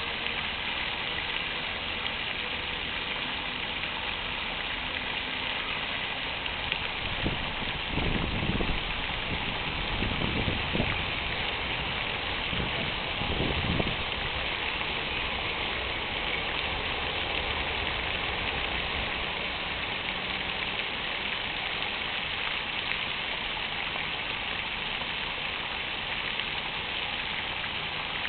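Fountain water splashing steadily into its basin, an even, dense hiss. A few short low rumbles swell up and fade again about a third of the way in.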